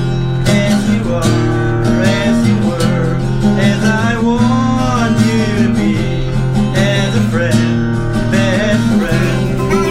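Acoustic guitar played as music, sustained chords with a melody line above them.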